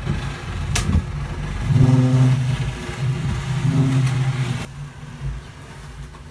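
A low, steady droning hum, like a motor running, heard in two stretches with a short gap between them, after a couple of sharp clicks about a second in.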